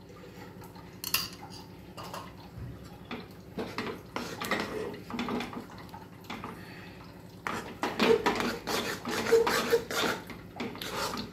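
Metal spoon scraping and clinking against a kadhai while stirring thick jaggery and rice-flour dough, with ghee just added to help it pull away from the sides. The strokes grow busier and louder in the last few seconds.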